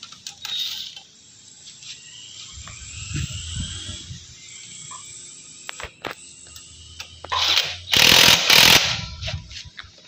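Cordless impact wrench working a bolt on a motorcycle's exhaust mount. Its motor whines for several seconds, and about eight seconds in comes a loud burst of rapid hammering.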